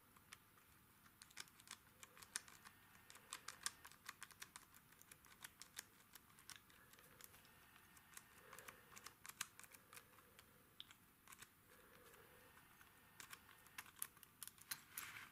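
Faint, irregular metallic clicks of a tubular lock pick being worked in the cylinder of a tubular-key bike lock as it sets the pins.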